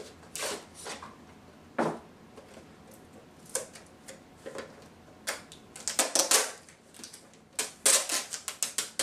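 The hard plastic retail case of a GoPro camera being handled and pried apart: irregular clicks and crackles of plastic, coming thicker and louder in the second half.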